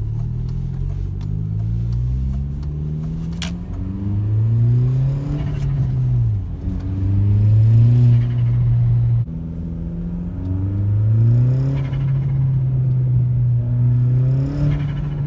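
Audi 1.8T turbocharged four-cylinder engine revving hard under boost. It climbs in pitch several times and drops back when the throttle closes. With the blow-off valve blocked, the turbo flutters (compressor surge) on each lift-off.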